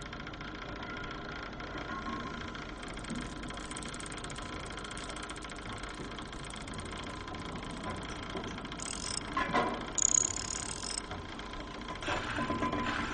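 A steady mechanical hum with several faint steady tones, with brief louder clattering about ten seconds in and again near the end.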